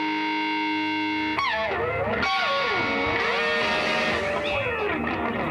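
Background music on electric guitar: a chord held steady, then from about a second and a half in, lead notes that slide and bend up and down.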